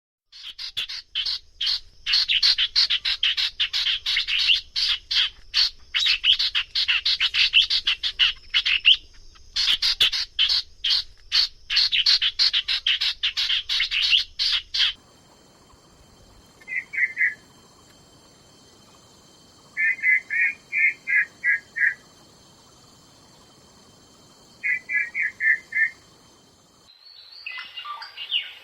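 Treepie calling: a long run of rapid, harsh chattering notes with one brief pause. Then come three short, quick rattling bursts, and harsher calls again near the end.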